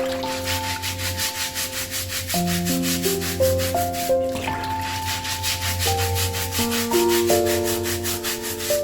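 A stiff brush scrubbing a shoe in quick, even strokes, about five a second, with a short pause about four seconds in. Calm instrumental background music plays under it.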